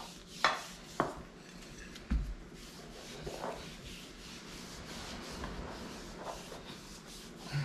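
Two sharp clicks of a spoon in a plastic bowl of flour and a dull knock, then soft, quiet rubbing of hands pressing and patting pastry dough on a silicone mat.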